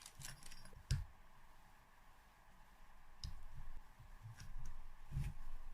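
A handful of light metal clicks and taps as the piston pin is pushed through the two-stroke piston and the con rod's little-end bearing, the sharpest about a second in.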